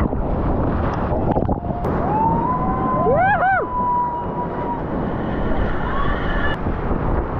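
Whitewater rapid rushing and crashing around a kayak, with spray and water hitting the helmet camera. About two seconds in, a steady whistle-like tone sounds for a few seconds, with several quick wavering pitch glides near the middle.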